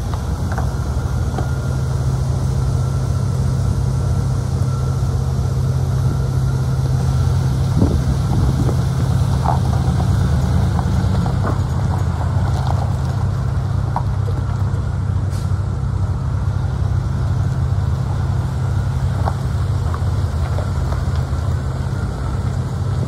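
1994 Chevrolet 3500 pickup's engine running steadily at low revs while the truck idles and drives slowly.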